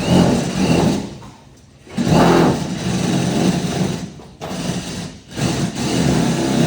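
Handheld electric power tool running in several bursts of one to two seconds with short pauses between them.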